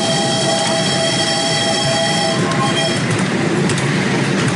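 Miniature steam train running, its wheels rumbling steadily on the track under the riding passengers, with a high ringing squeal over the rumble that fades out about two and a half seconds in.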